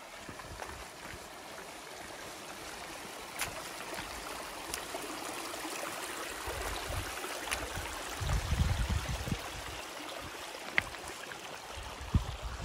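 Shallow mountain stream running and trickling over stones, a steady rushing. A gust of wind buffets the microphone with a low rumble about eight seconds in, and a few light ticks come through near the end.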